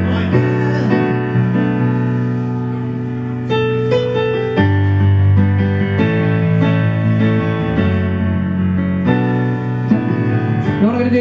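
Piano played in slow sustained chords over a deep bass note, the chord changing every second or two.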